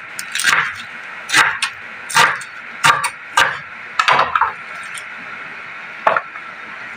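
Kitchen knife chopping pechay (bok choy) leaves on a wooden cutting board: about a dozen irregular knocks of the blade on the board, the last a little after six seconds in, over a steady faint hiss.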